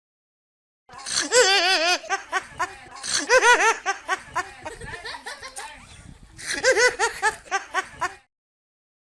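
Male laughter: hearty, rhythmic 'ha-ha-ha' laughing that starts about a second in. It comes in three louder bouts with quieter chuckling between them and stops suddenly near the end.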